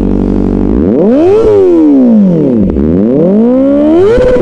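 Kawasaki Ninja ZX-4RR's 400 cc inline-four, breathing through an Austin Racing aftermarket muffler, idling steadily and then free-revved while parked: the pitch climbs quickly to a peak about a second and a half in, falls away more slowly, then climbs again and holds near the end.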